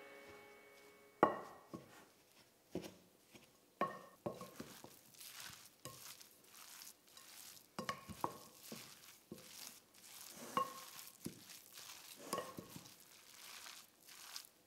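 Wooden spatula stirring a grated zucchini, carrot and chickpea mixture in a glass mixing bowl: soft rustling and squishing of the shredded vegetables, with repeated sharp knocks of the wood against the glass, some ringing briefly. The loudest knock comes about a second in.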